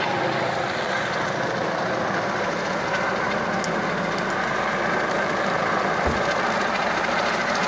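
Steady engine drone, with a brief low thump about six seconds in.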